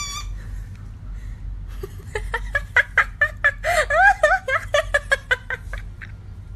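A person giggling in a quick run of short bursts, starting about two seconds in and dying away before the end.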